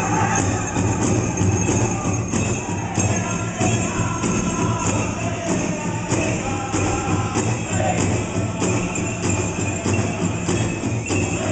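Powwow drum group singing a chicken dance song over a steady, even drumbeat, with bells jingling in time.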